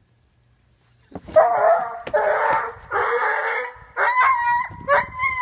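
Harsh, noisy animal cries in three bursts starting about a second in, followed near the end by shorter pitched, yelping cries.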